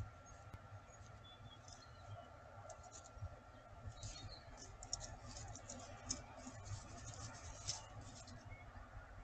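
Peregrine falcon shuffling on the gravel of her nest scrape as she settles onto her eggs: faint scratching and a quick run of small clicks of stones, densest from about four to eight seconds in.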